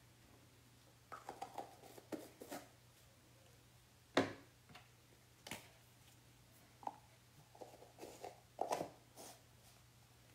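Scattered light knocks, taps and clicks of things being handled on a work table, the loudest about four seconds in.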